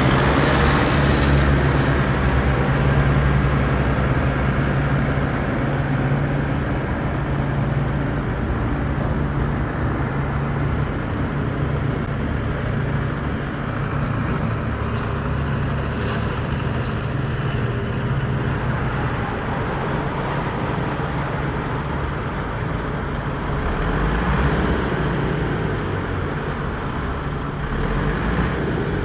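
Radio-controlled model construction vehicles running: a steady mechanical drone with a low, even hum, much like an idling engine.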